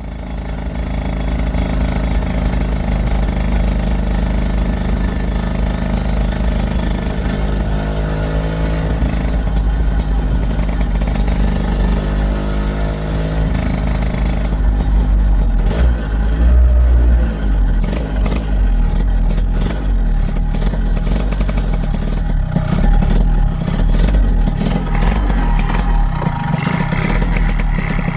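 A 1964 Lambretta Series 3 scooter's two-stroke single-cylinder engine running on the move with its side panels off, its pitch rising a couple of times as it accelerates, with a clattery edge.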